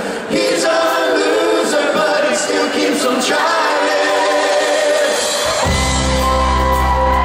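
Live band performing: several voices singing close a cappella harmony, then the full band with bass and drums comes in about five and a half seconds in.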